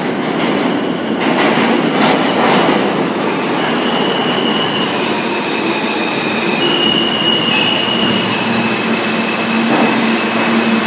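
An R160 New York City subway train, running as an E, pulls into the station and brakes. Its wheels rumble and clack over the rail joints, high wheel squeals come in from about three seconds in, and a low steady hum rises near the end as the train slows to a stop.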